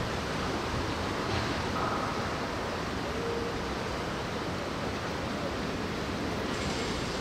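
Steady hiss of wind and rain, even and without rhythm, with a faint click about a second in.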